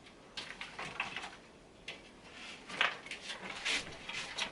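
Power-supply cables being handled and routed inside a PC case: irregular rustling and light plastic clicks, with a sharper knock a little under three seconds in.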